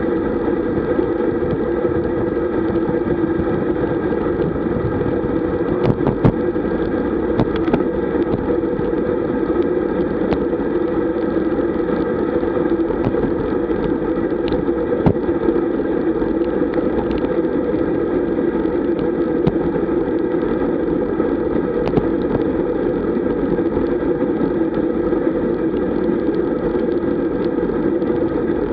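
Steady rush of wind and tyre-on-road noise from a camera on a road bike riding fast in a group, with a few short sharp clicks and knocks, one about six seconds in and another at about fifteen seconds.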